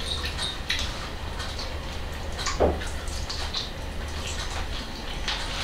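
Two people eating chicken drumsticks with their hands: wet chewing, lip smacks and small clicks against plates, with one short falling vocal sound about two and a half seconds in, over a steady low hum.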